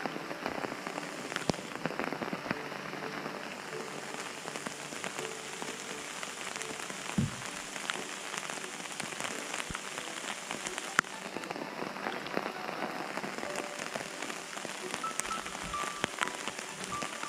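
Light drizzle pattering steadily, with many small drip ticks and a couple of sharper knocks.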